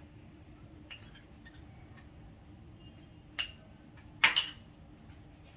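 Light clinks of a steel spoon and small glass spice bowls being handled and set down: a few faint ticks, then two short sharp clinks about three and a half and four and a quarter seconds in, the second the louder.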